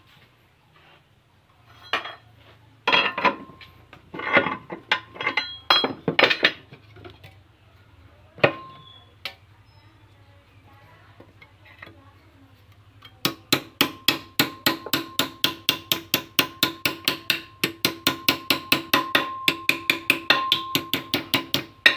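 A hammer striking a flat steel bar held against a car's lower control arm at the ball joint, with the arm clamped in a steel bench vise. There are a few scattered knocks and clinks at first, then from about halfway a steady run of about four ringing metal blows a second.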